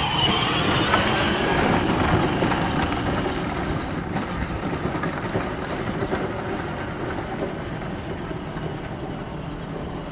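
Power Wheels ride-on toy Ford Mustang driving away: its electric motor and gearbox whirring and its hard plastic wheels rattling over concrete and gravel, a steady rolling clatter that slowly fades.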